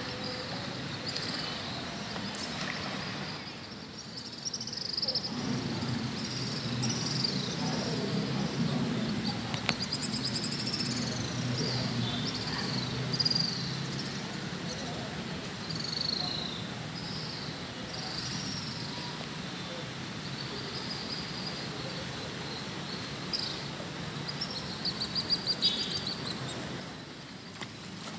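Birds chirping in short repeated calls over the steady rush of a flowing river, with a fast trill near the end.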